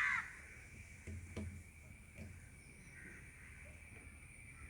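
A crow gives one short, harsh caw right at the start, then quiet background with a faint knock about a second and a half in.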